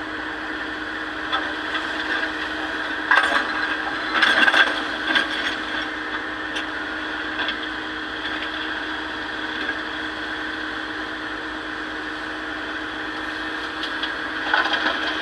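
Excavator engine running steadily while loose stone clatters into a steel dump truck bed in bursts, about three seconds in and again near the end.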